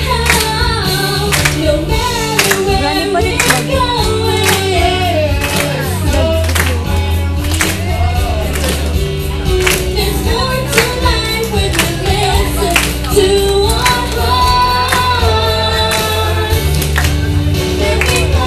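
A man and a woman singing a pop duet into handheld microphones over accompaniment with a steady beat and bass.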